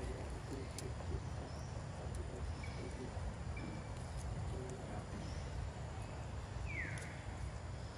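Outdoor background with a steady low rumble. Over it come a few faint, short, high chirps, and near the end one short squeak that falls in pitch.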